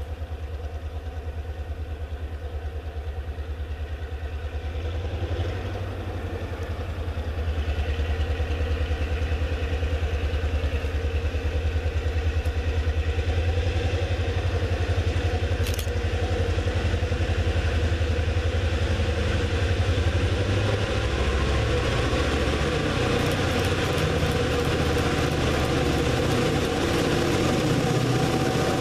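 Reading and Northern diesel locomotive approaching with a low, steady engine rumble that grows louder as it nears. In the last few seconds, as it comes close, a quick run of clicking sounds joins in.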